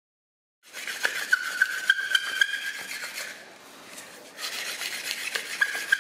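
Hand-drill friction fire-starting: a wooden spindle twirled back and forth between the palms and pressed into a wooden hearth board, giving a scratchy wood-on-wood rubbing with a squeak that pulses about three times a second. It starts about half a second in, eases off for about a second in the middle, then picks up again.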